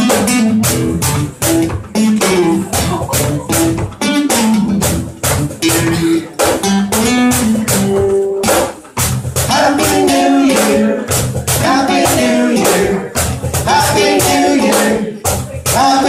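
Acoustic guitar strummed in a steady rhythm, with a man's voice singing the melody over it from about halfway through.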